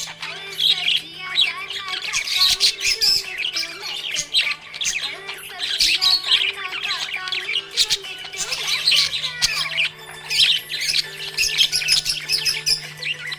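Budgerigars chirping, warbling and squawking in continuous chatter, over a steady low hum.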